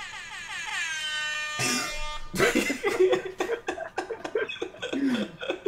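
An air-horn sound effect played from a soundboard: a cluster of pitched tones that slide down and then hold, cut off about two seconds in. It is followed by people laughing.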